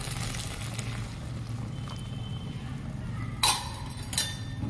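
Steel slotted spatula clinking twice against the pan while stirring thickening sauce, about three and a half and four seconds in, over a steady low hum.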